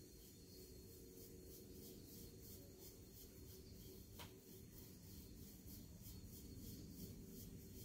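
White bamboo tea whisk kneading thick matcha in a tea bowl: faint, even scraping strokes, about three or four a second, with one light tap about four seconds in.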